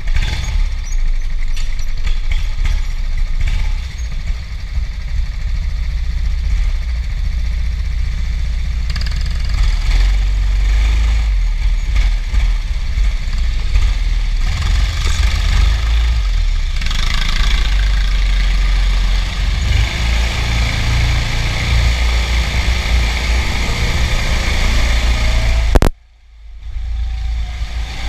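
Go-kart driven around an indoor track, heard from the driver's seat: a loud, steady deep rumble of the kart's motor and chassis against the microphone, with a noisy hiss above it. It cuts out briefly about two seconds before the end, then comes back.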